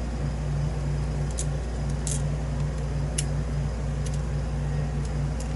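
A handful of faint, sharp little clicks, about five spread over the seconds, as tiny brass lock pins and parts are handled on a work surface, over a steady low background hum.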